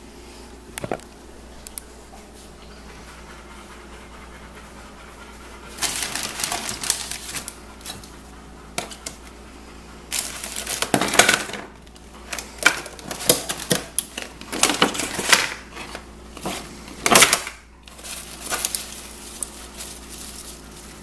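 Food packaging being handled: plastic bag and clamshell salad tub crinkling in irregular bursts as greens are picked out, with a couple of light knocks in the first two seconds, over a faint steady hum.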